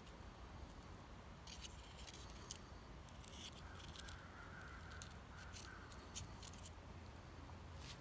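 Near silence: quiet woodland ambience with a few faint, light crackles and clicks.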